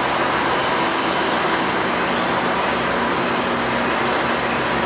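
GE P42DC diesel locomotive running steadily as it moves slowly with a short passenger train, a constant engine drone under an even hiss, with a thin high whine throughout.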